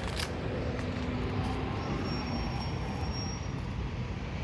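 Steady road traffic noise with a low rumble: cars passing on the street below.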